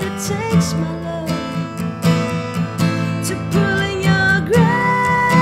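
Background music led by acoustic guitar, with a melody line that slides between held notes.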